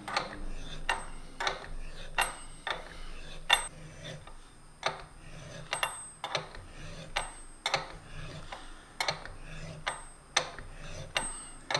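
Alligator wrench working a hand tap into cast iron: a string of short metallic clicks and clinks, roughly two a second and unevenly spaced, as the wrench is turned and reset on the tap's square.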